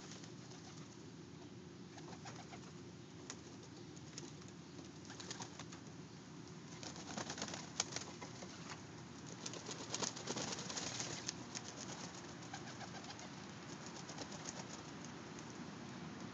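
Domestic pigeons bathing in a tub of water, splashing and flapping their wings in flurries, with the loudest bursts about eight and ten seconds in. A steady pigeon cooing runs underneath.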